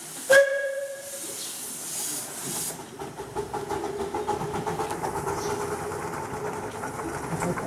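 Miniature steam locomotive getting under way: a short whistle toot, a hiss of steam, then quick, even exhaust beats as it moves off.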